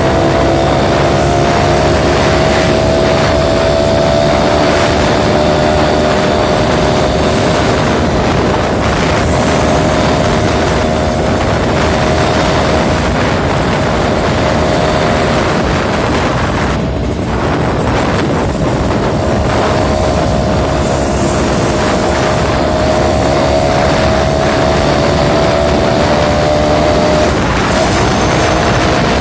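Suzuki Tornado two-stroke motorcycle engine running steadily under way, its note holding, with a thick rush of wind and road noise. The engine note eases briefly a little past halfway through, then comes back.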